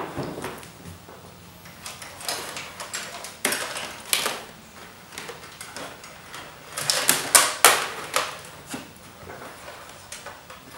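Hands working wires and a hard plastic body panel: irregular rustles, scrapes and clicks, with a louder cluster of clacks about seven seconds in.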